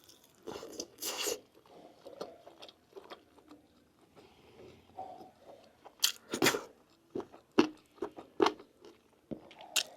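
A person eating close to the microphone: irregular chewing and biting of meat, with wet mouth clicks and crunches. The loudest bites come about a second in and again around six seconds in.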